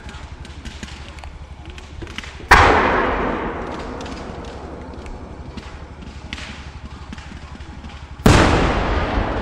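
Two large aerial firework shells booming about six seconds apart, each a sudden loud report followed by a long, slowly fading echoing rumble, with faint scattered pops between them.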